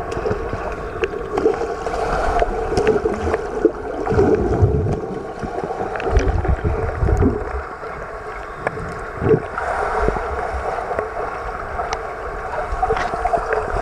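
Muffled underwater sound in a swimming pool, heard through a submerged camera: a steady hum under a noisy wash, with scattered sharp clicks and several low rumbling swells from swimmers' kicks and bubbles.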